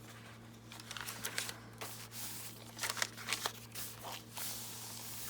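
Paper and cardstock rustling and crinkling as junk journal pages and ephemera are handled and turned, with a few short sharper crackles, over a steady low electrical hum.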